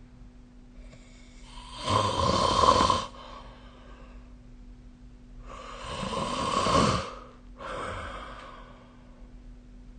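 A sleeping person snoring: two loud snores, each a second or so long and about four seconds apart, the second followed by a quieter, shorter breath.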